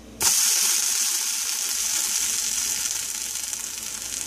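Buttered grilled cheese sandwich sizzling in a hot stainless steel frying pan as it is flipped: the sizzle starts suddenly just after the start and slowly dies down.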